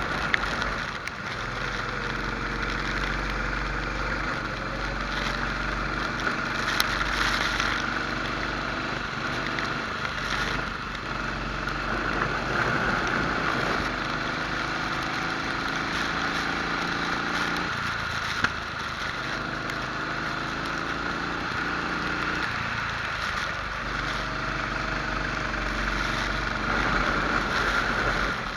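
Rental kart engine heard onboard during a race, its pitch rising along the straights and dropping each time the driver lifts for a corner, several times over. A steady hiss runs underneath, with the track wet.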